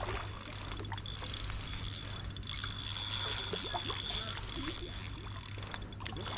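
Insects chirping in a steady run of rapid, high-pitched pulses, over a low steady hum and faint distant voices.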